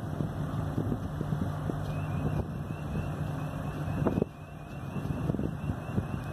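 Low, steady diesel engine rumble of a harbour tug working on a towline at a tanker's bow, with wind noise on the microphone that drops off about four seconds in.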